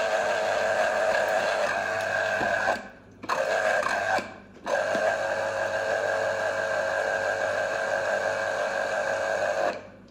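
Ikon electric citrus juicer's small motor whirring steadily as it spins the reamer cone under a pressed-down orange half. It stops briefly twice, about 3 and 4.5 seconds in, then cuts out near the end as the orange is lifted off.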